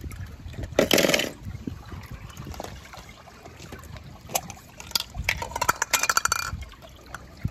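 Hands handling a wet clear plastic toy egg and a die-cast toy car: a rustling scrape about a second in, then scattered clicks and a quick run of rattling plastic and metal clicks near the end.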